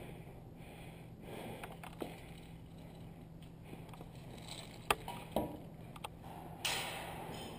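Quiet room with a steady low hum, broken by a few sharp clicks in the second half and a short rushing breath near the end.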